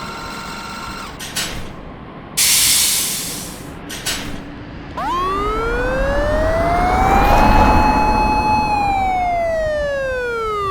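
Electric train motor whine with many overtones, rising in pitch as it speeds up, holding steady, then falling away as it slows. Before it, a steady tone stops about a second in, followed by a few clicks and a short burst of hiss.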